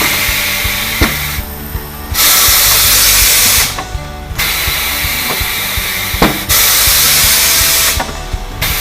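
Compressed air hissing in repeated bursts of one to two seconds with short breaks between, from pneumatic tire-shop equipment, with a few sharp clicks. Background music with a beat plays underneath.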